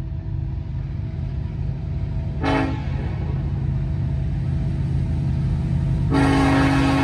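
Approaching locomotive's air horn sounding for a grade crossing: one short blast about two and a half seconds in, then a long, louder blast starting near the end, over a steady low rumble.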